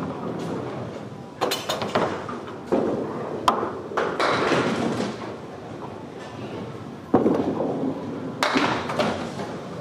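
Bowling alley din: bowling balls rolling on the lanes, with repeated heavy thuds and clattering pin crashes over a background of voices in a large, echoing hall. Near the end a ball rolls into the pins and knocks them.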